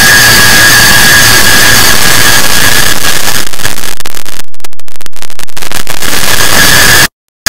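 Clock-tick sound effect layered and sped up so far that the ticks merge into a loud continuous hiss with a steady high whistle. About halfway through it thins into rapid, dense clicks, then cuts out suddenly shortly before the end.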